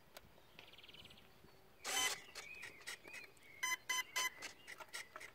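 Electronic speed controller arming tones played through a Racerstar BR2212 1400KV brushless motor: three short pitched beeps in quick succession near the end, the signal that the motor is armed. A brief rush of noise comes about two seconds in.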